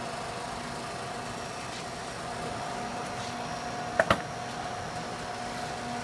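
Refrigeration trainer's compressor running with a steady hum while it pumps the system down toward a vacuum, pushing the liquid refrigerant into the recovery tank. Two sharp clicks close together about four seconds in.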